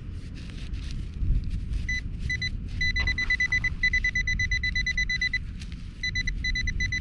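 Nokta AccuPoint pinpointer beeping in rapid pulses as it is worked over a buried metal target in the grass. The beeping starts about two seconds in, breaks off briefly past the middle, then picks up again, over a low rumble.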